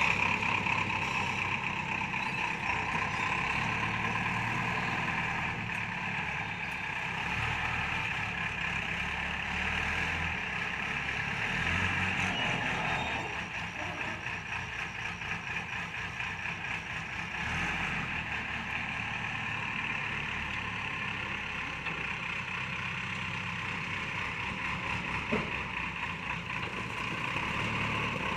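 Diesel engine of a JCB 3DX backhoe loader running steadily while it works, easing off a little in the middle, with one short knock near the end.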